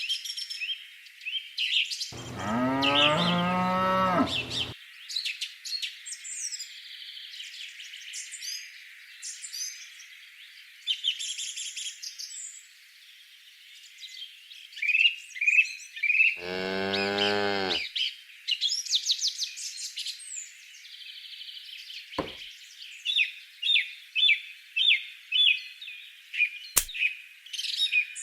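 A cow mooing twice, one long low call a couple of seconds in and a shorter one past the middle, over steady chirping of small birds.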